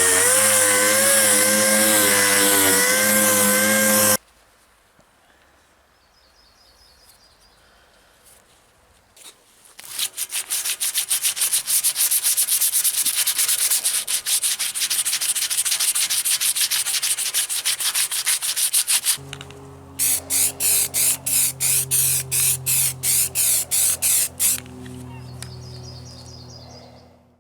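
A power tool runs with a wavering whine and cuts off about four seconds in. After a quiet pause comes hand sanding: sandpaper rubbed in rapid back-and-forth strokes, then slower, separate strokes over a low steady hum.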